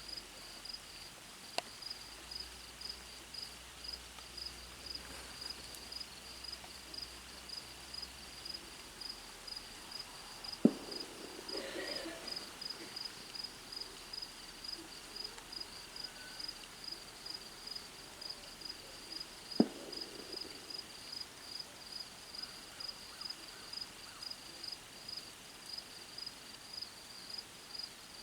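Two distant gunshots about nine seconds apart, each a sharp crack with a short echo after it, over insects chirping steadily at about two pulses a second.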